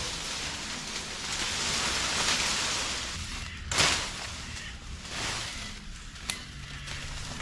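Woody branches and leaves rustling for a couple of seconds, then one sharp chop into wood and a lighter tap a little later, while a sapling is cut for poles.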